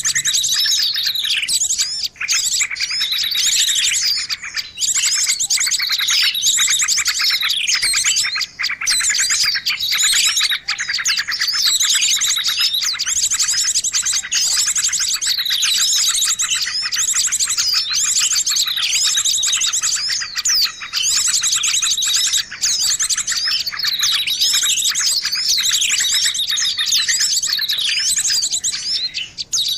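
Bird-lure recording of small songbirds: many high chirps, sweeping calls and fast trills overlapping almost without pause, made to draw small birds in.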